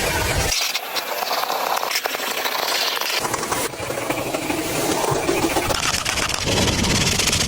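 Vacuum cleaner running, with a steady rushing hiss of suction as the car's interior is vacuumed. Its tone changes abruptly a few times.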